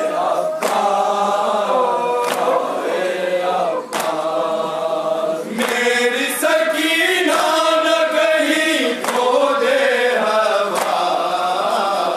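A group of men chanting a noha (Shia lament) in unison, led by a male reciter on a microphone, with sharp chest-beating strikes (matam) about every second and a half.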